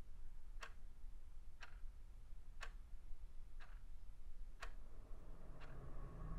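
Small plastic alarm clock ticking once a second, six ticks alternating louder and softer. A steady tone and a low hum come in near the end.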